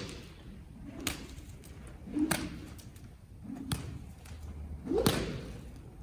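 Horse-training whip swung in a steady rhythm, landing four sharp slaps about every 1.3 seconds, as used to desensitize a horse to the whip.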